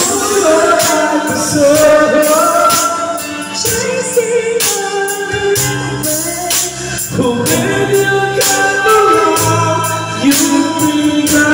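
Two men singing karaoke into microphones over a backing track with a regular beat.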